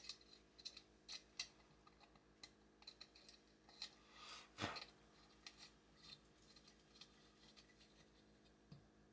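Faint clicks and light metallic taps of small parts and fasteners being handled and fitted on a chainsaw crankcase, with a short scuffing sound about four and a half seconds in.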